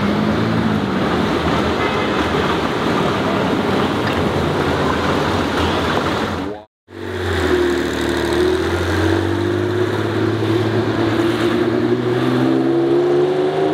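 Porsche 911 flat-six running at low speed on the street: a loud, rough engine sound for the first half, a brief dropout, then a steady low engine drone whose pitch dips near the end.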